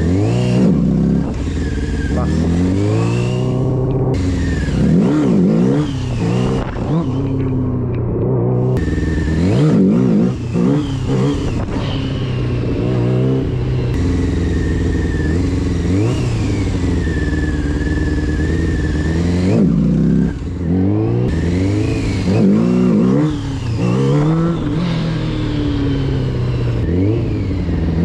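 Small stunt motorcycle engine revved up and down again and again as the throttle is opened and shut while the bike rolls slowly, the blips of throttle used in learning to lift the front wheel. The pitch climbs and drops every second or two, and it holds steadier for a few seconds in the middle.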